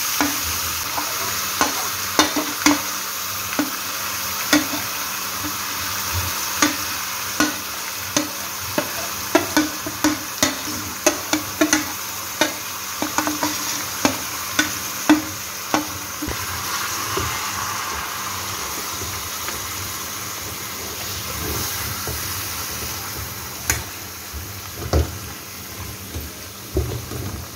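Marinated chicken pieces sizzling in hot oil in a wok, with a steel spoon scraping and knocking against the bowl and pan as the chicken goes in and is stirred. The clatter is dense for the first half and thins out after about 16 seconds, leaving the sizzle, which grows quieter near the end.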